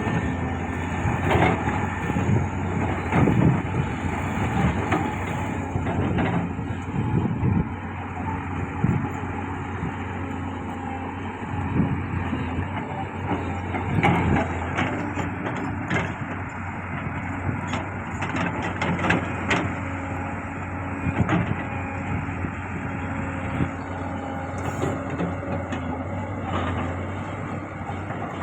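Heavy diesel construction machinery running steadily, with irregular metallic clanks and knocks throughout.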